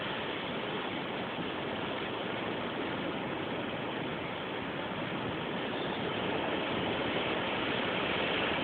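Storm wind blowing steadily, a rushing noise that grows a little louder near the end.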